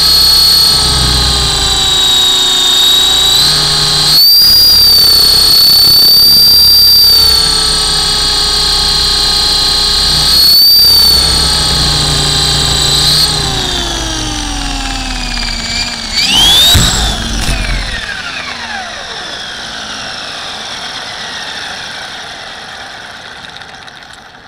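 RC model Hughes 300 helicopter's motor and rotor whine heard from its onboard camera, steady and high-pitched with small rises and falls in pitch. About 13 s in the pitch starts falling; around 16–17 s there is a brief loud rising surge with a few knocks, then the rotor spins down with falling pitch and fades out.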